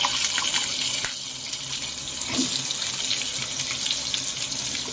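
Sliced raw potatoes sizzling in hot oil with cumin seeds in a frying pan: a steady hiss with small crackles as the wet slices hit the oil.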